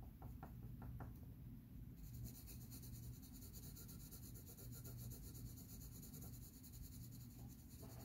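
Graphite pencil shading on drawing paper, faint: a few separate strokes in the first second, then from about two seconds in a fast, steady back-and-forth scratching of the lead across the sheet.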